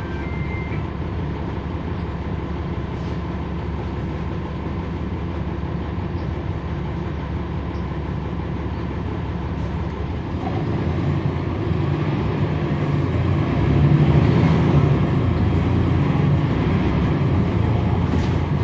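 NABI 40-SFW transit bus's Cummins ISL9 diesel engine, heard from on board: a steady low hum for about ten seconds, then the engine note grows louder and peaks a few seconds later as the bus accelerates.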